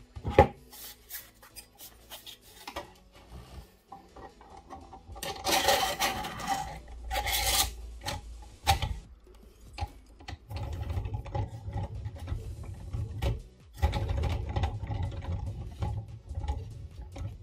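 3D-printed plastic turbine parts being handled: clicks as the rotor is fitted to the generator shaft, and a scraping, rubbing stretch about six to nine seconds in. From about ten seconds in comes a low rumble as the hand-spun turbine rotor turns the small generator, which lights an LED.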